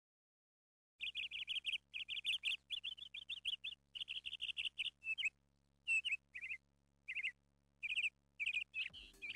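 Small birds chirping: quick runs of short, high chirps with brief pauses between the runs, starting about a second in.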